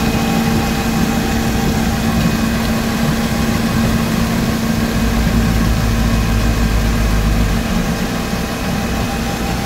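Volumetric concrete mixer lorry running while it mixes and discharges concrete down its chute: a steady machine drone with a fixed hum. A deeper rumble swells about five seconds in and drops back near eight seconds.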